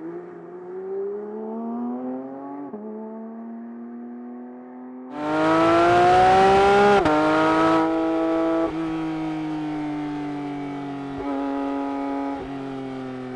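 Porsche 911 GT3 Touring (992)'s naturally aspirated 4.0-litre flat-six accelerating through the gears. The note climbs and drops at an upshift a few seconds in. About five seconds in it turns much louder and harsher at full throttle, rising in pitch until the next upshift about seven seconds in, then several more shifts as the note eases off.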